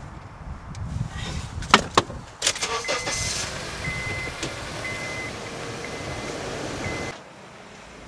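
Honda CR-V being started: a couple of sharp clicks at the ignition, then the engine catches and runs, while a warning chime beeps about once a second, five times, the reminder of an unfastened seat belt. The sound stops abruptly about seven seconds in.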